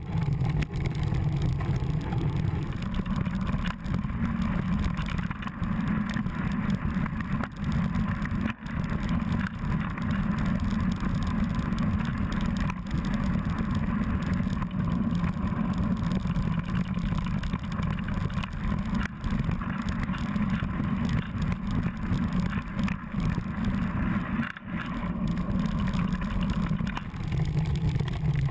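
Mountain bike rolling fast over rocky, gravelly singletrack, heard through a camera mounted on the bike: a steady low rumble of wind buffeting the microphone, mixed with the rattle and scattered knocks of the tyre and frame over stones.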